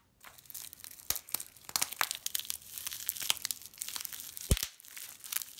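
Clear plastic wrapping crinkling and tearing as hands pull it off a wrapped coin, a quick irregular run of crackles, with one dull thump about four and a half seconds in.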